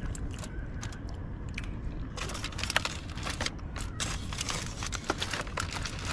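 Close crinkling, crackling and clicking of plastic food packaging being handled during a meal, in irregular bursts, over a steady low hum.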